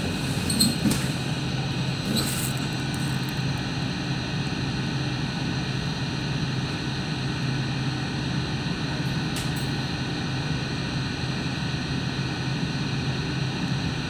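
Inside a Hong Kong Light Rail car running along the track: a steady hum of motors and wheels on rail, with a couple of short knocks in the first few seconds.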